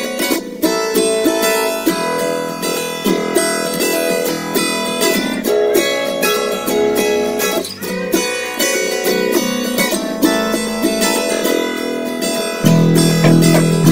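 Background music of plucked and strummed acoustic guitar, with a fuller, louder low part coming in near the end.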